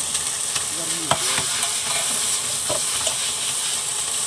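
Chow mein noodles sizzling in a large wok as they are stirred, a steady hiss with several sharp metallic clinks.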